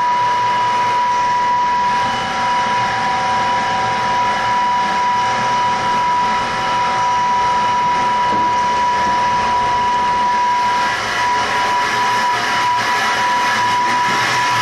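Tesla-type disc sand pump and its 18.5 kW electric drive running steadily under test: an even, loud machine noise with a constant high whine.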